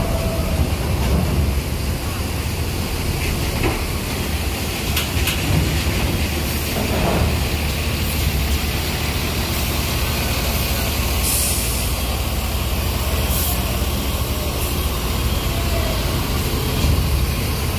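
Diesel coach buses driving off a ferry's steel loading ramp: a steady deep engine rumble, with two short hisses of air a little past the middle.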